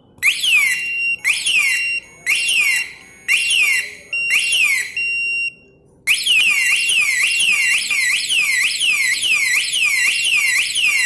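Thor motorcycle alarm siren sounding: five short bursts of quickly repeating falling electronic sweeps about a second apart, then, about six seconds in, a continuous run of the same falling sweeps.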